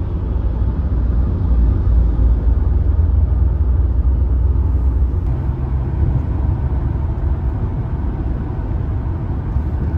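Steady low rumble of a Toyota car's engine and tyres on the road, heard from inside the cabin while driving at highway speed. A low steady hum joins the rumble about halfway through.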